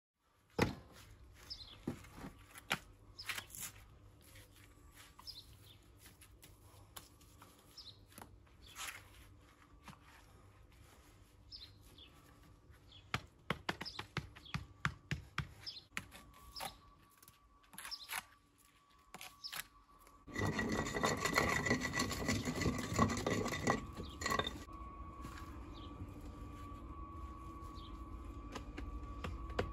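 Building work with hand tools: scattered taps and scrapes, then a loud rasping for about four seconds about two-thirds of the way through, followed by a steady hum.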